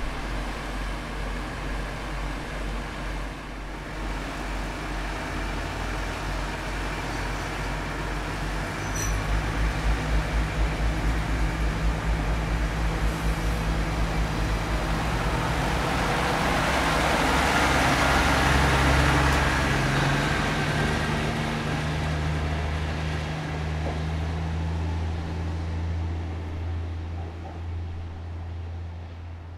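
KiHa 40/48 series diesel railcar's engine running at idle, then opening up with a pulsing beat as the train pulls away. The engine and wheel noise build to a peak a little past halfway and then fade as it draws off.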